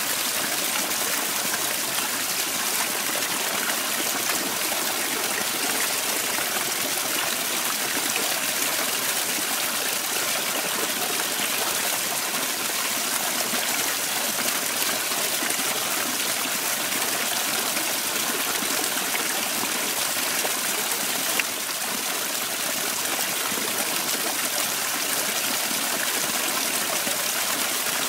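Small garden waterfall pouring over stone into a pond: a steady rush and splash of falling water, with one short tick a little past two-thirds of the way through.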